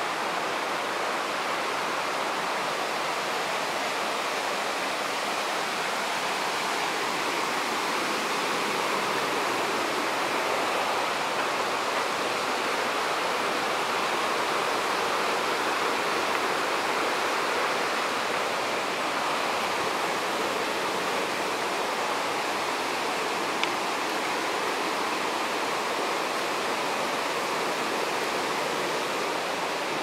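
Steady rush of flowing water from a jungle stream and its cascades, a constant hiss with no breaks. A single click about two-thirds of the way through.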